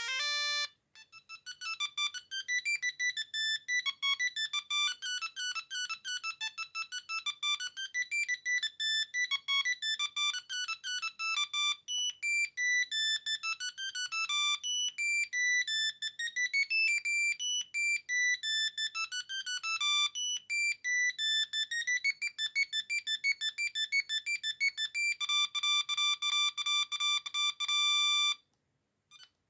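Siemens A36 mobile phone playing one of its built-in ringtones: a fast single-voice melody of short electronic beeping notes, several a second, ending on a long held tone that cuts off suddenly near the end. The last notes of the previous ringtone die away just under a second in.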